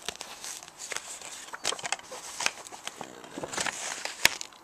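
Paper sheet being peeled and pulled off a steelbook case, an irregular crackling rustle with small clicks where it comes away from the glue, and a sharp click near the end.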